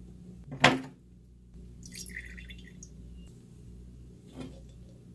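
A sharp knock about half a second in, a short clink a second or so later, and a softer tap near the end, from the handling of the steel distiller pot and the glass jar mug, over a steady low hum.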